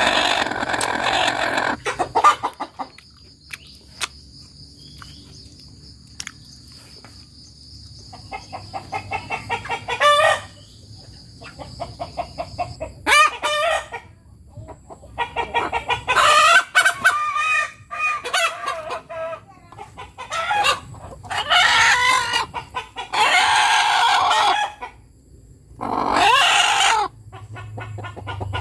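Village hens cackling: runs of quick short clucks that break into long drawn-out 'petoook' calls, repeated many times. This is the cackle a hen gives after laying an egg, or when something strange alarms her.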